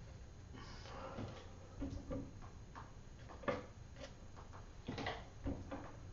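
Irregular light clicks and knocks from handling watercolour brushes at the water pot and brush tray, after a brief rustle about a second in; the sharpest knock falls about halfway through.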